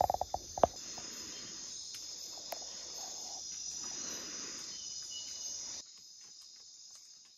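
Night chorus of rainforest crickets and other insects: a steady high-pitched shrilling, with a short burst of rapid clicking near the start. The chorus drops away about six seconds in.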